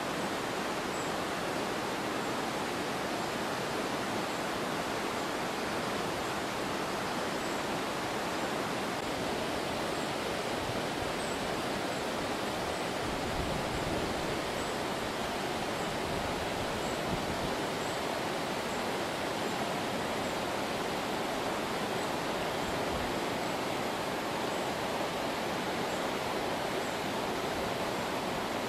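Steady rushing of the River Tay flowing over rocks and shallow rapids.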